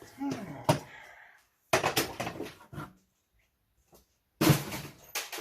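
Hard objects knocking and clattering in three short bouts, with several sharp clicks.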